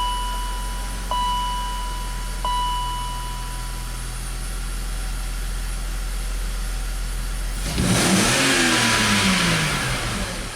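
BMW X5 six-cylinder engine idling with a lean misfire, then revved once about eight seconds in, the pitch rising and then falling back toward idle. A steady high beep sounds over the idle for the first few seconds.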